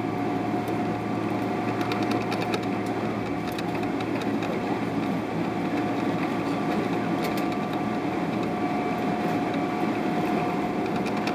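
Steady cabin noise inside a Boeing 777-300ER: a constant rumble and air hum with one steady whine. Light rattles and ticks from the cabin fittings come and go, around a few seconds in and again about two-thirds of the way through.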